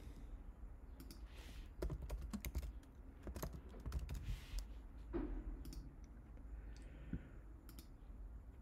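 Typing on a computer keyboard: a run of faint keystrokes in the first half, then a few scattered clicks.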